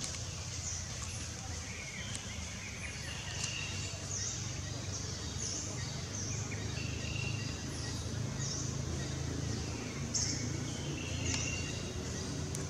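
Small birds chirping, short high chirps every second or so with a few brief whistled notes, over a steady low hum of background noise.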